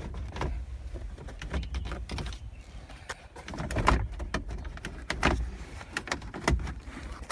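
Plastic center console of a Mazda MX-5 being lifted from the front and pushed back out of place, its trim and clips giving irregular clicks and knocks, a few louder ones near the middle.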